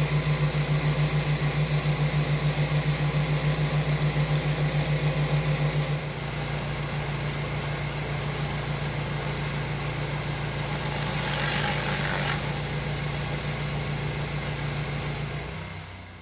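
Pressure washer engine running steadily, with a hum that pulses evenly for the first few seconds and a broad hiss over it; the sound fades out near the end.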